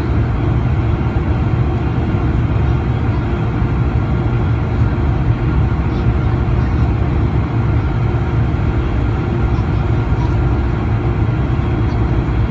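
Steady engine and airflow noise inside the cabin of a Boeing 747-400 climbing out after takeoff, heard from a seat over the wing near its Rolls-Royce RB211 engines. A deep, even rumble with a few faint steady whine tones above it.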